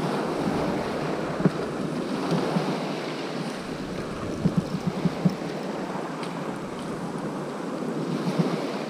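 Small waves breaking and washing up a shingle beach, a steady surf noise with wind on the microphone. A few short clicks stand out about a second and a half in and again around the middle.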